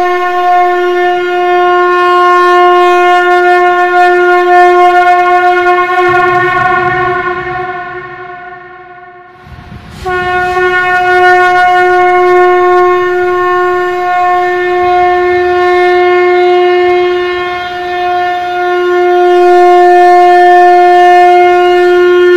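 Shankh (conch shell) blown in long, steady blasts on a single held note. The first blast dies away over a few seconds, and after a brief gap about ten seconds in, a second blast starts at the same pitch.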